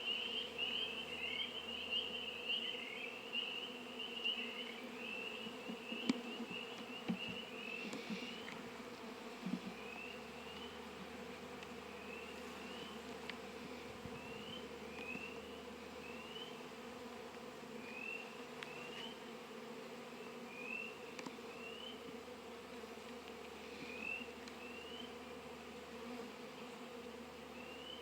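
Honey bees buzzing around an opened hive in a steady hum. Short high rising chirps repeat every second or so, running together at first and then spaced out, with a few light knocks now and then.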